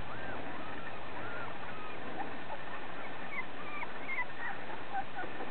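Three-week-old puppies whimpering and squeaking: many short, faint, high-pitched cries, scattered and overlapping, over a steady background hiss.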